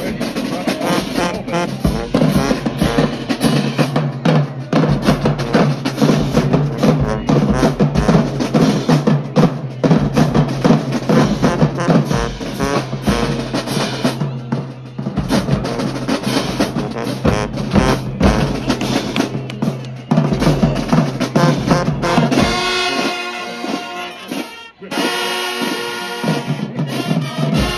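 Marching band playing in the stands: drumline of snares, bass drums and crash cymbals pounding under brass and saxophones. Near the end the drums drop out and the horns play held chords, with a brief break between them.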